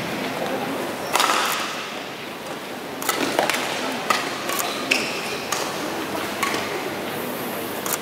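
Badminton rally: rackets strike the shuttlecock in a string of sharp hits about a second apart, with short shoe squeaks on the court floor, over the arena's crowd murmur.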